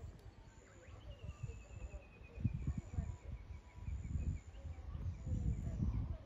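A bird singing a long run of quick chirps that slowly fall in pitch, over an uneven low rumble that is the loudest thing.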